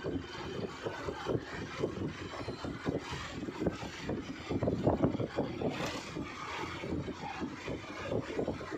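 A vehicle's engine running as it drives along, with wind buffeting the microphone in uneven gusts.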